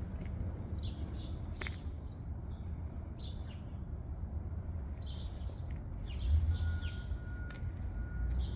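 Small birds chirping now and then in short high calls, over a steady low rumble of street background noise.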